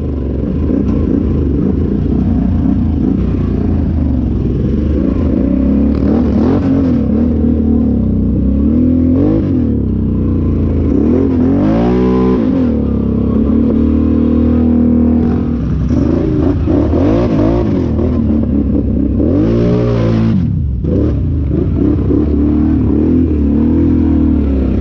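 Off-road vehicle's engine running under way on a trail, revving up and easing off repeatedly, with the sharpest rises and falls in pitch about halfway through and again near the end.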